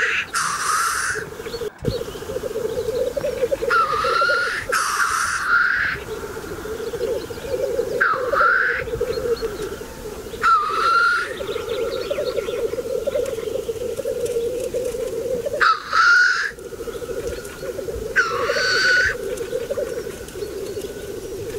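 Displaying black grouse cocks: a continuous bubbling, cooing song, broken every few seconds by a loud, rising, hissing sneeze.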